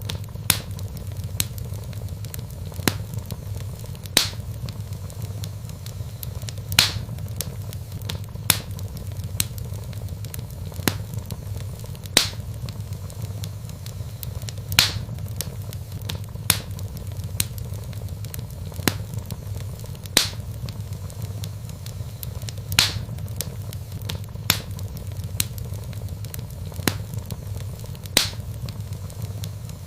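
Log fire burning in a fireplace, with a steady low rumble of flames and sharp crackles and pops of burning wood every second or so, a louder pop every few seconds.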